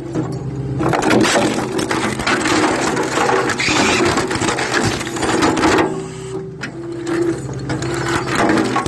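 Stihl small engine being cranked on its pull-start, clattering in uneven spells without catching and running: it won't start.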